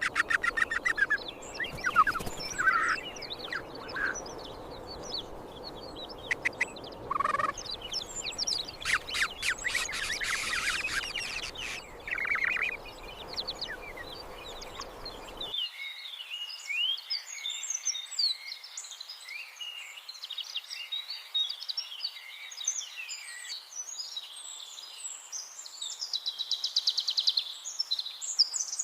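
Birds calling: harsh, rapidly pulsed squawks over a noisy background, then, after an abrupt cut about halfway, a busy chorus of quick high-pitched chirps.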